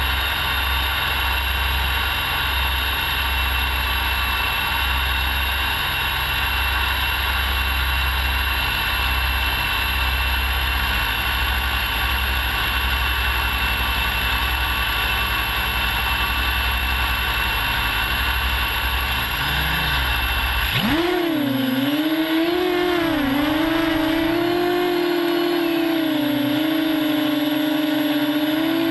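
Small FPV quadcopter's brushless motors and propellers, heard from the camera mounted on its frame: a steady high whine at low idle on the ground, then about 21 seconds in the throttle comes up as it lifts off and flies, the buzz rising and wavering up and down in pitch with the throttle.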